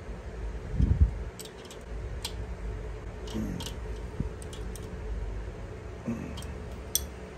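Hand wrenches working the adjustable pushrod lock nuts on a Harley Twin Cam engine: scattered sharp metal-on-metal clicks as the nuts are held and tightened, with a dull thump about a second in.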